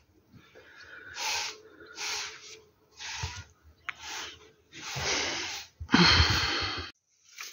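Broom sweeping paving stones: rough swishing strokes about once a second, the last two longer and louder.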